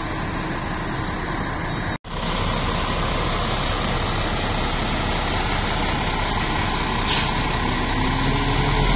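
Heavy diesel engine of a Zoomlion QAY200 mobile crane running steadily at idle, with a brief hiss of compressed air about seven seconds in.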